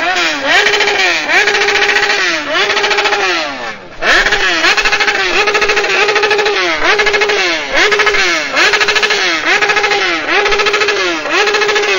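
High-displacement motorcycle engine revved again and again into the rev limiter. Each rev climbs quickly, holds flat at the limiter for a moment, then falls away, roughly every two-thirds of a second, with a brief drop about four seconds in.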